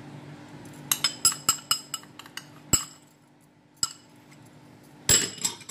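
A small ceramic bowl and a spoon clinking against a ribbed glass bowl as cornflour is tipped in: a quick run of light clinks, two single knocks, then a louder clatter near the end.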